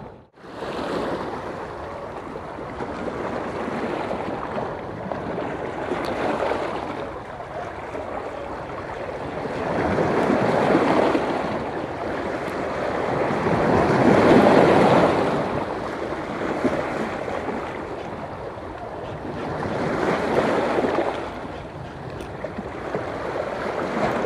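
Choppy sea waves washing onto the shore, a steady rush that swells louder three times as bigger waves come in.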